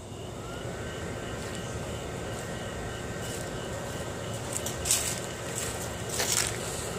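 Built-in blower fan in the base of a 12-foot Halloween inflatable starting up and running, a steady whir with a thin whine that rises just after the start and then holds level as the inflatable fills. A couple of short rustles come about five and six seconds in.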